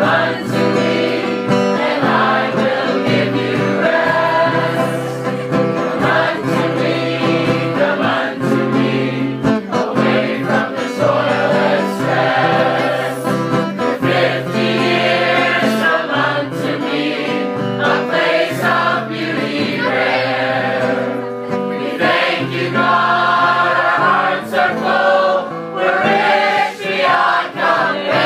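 A group of people singing a gospel hymn together in chorus, with held notes.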